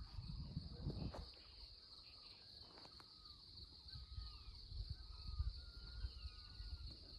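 Steady high-pitched insect drone, with several short whistled bird notes, some falling in pitch, scattered through the middle, over a faint low rumble.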